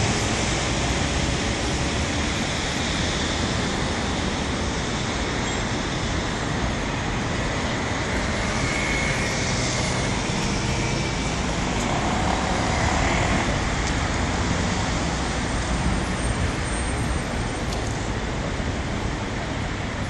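Steady city road traffic: a continuous rush of cars passing on a nearby boulevard.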